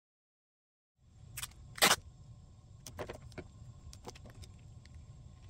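Clear packing tape pulled off its roll and pressed down over a cracked phone screen, starting about a second in: a sharp rip of tape just under two seconds in, then crackles and rubbing as the fingers smooth it onto the broken glass.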